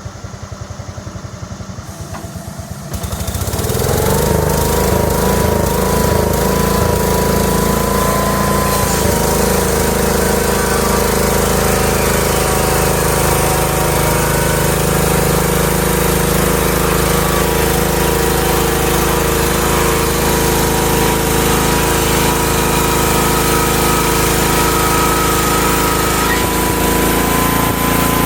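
Homemade sawmill's small gas engine idling with a slow, even pulse, then throttled up about three seconds in and running steadily at high speed under load.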